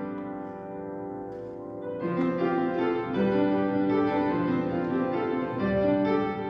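Background music played on piano: sustained chords that change every second or so, with a new chord entering about two seconds in.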